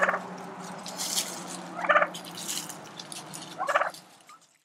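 Domestic turkeys gobbling: three short, rapidly rattling gobbles about two seconds apart. The sound cuts off shortly after the last one.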